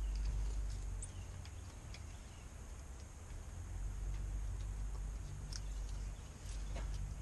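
Scattered light clicks and taps of small hand tools and hardware being handled, over a low steady hum.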